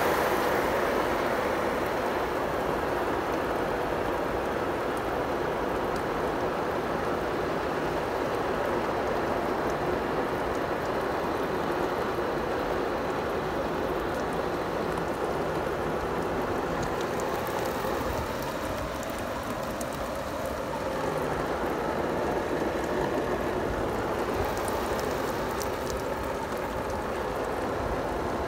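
Water spray from a garden hose hitting a clear plastic croissant box, a steady rain-like patter on the plastic.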